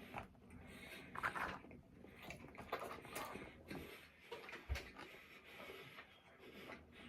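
Eating sounds: chewing with irregular soft mouth clicks and crackles.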